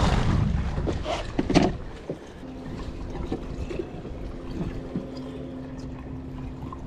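Splashing and a few knocks on the skiff's fiberglass deck as a small snook is let go over the side, the loudest knock about a second and a half in. After that a steady low hum runs on.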